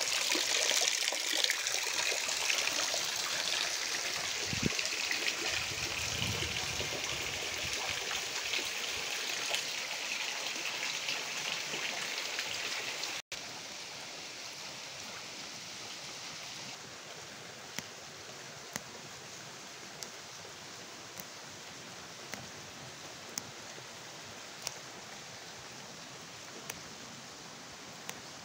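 Water gushing from a pipe and splashing into a plastic tub, a loud steady splashing. About halfway through it cuts to a quieter steady water sound with sparse sharp ticks about once a second.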